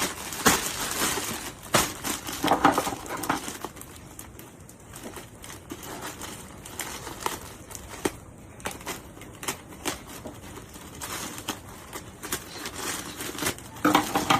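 Packaging crinkling and rustling as a parcel is opened by hand, with scattered clicks and taps throughout.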